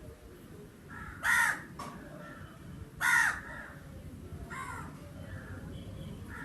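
Crow cawing: two loud short caws about two seconds apart, then a fainter caw, with softer calls from further off in between, over a steady low background noise.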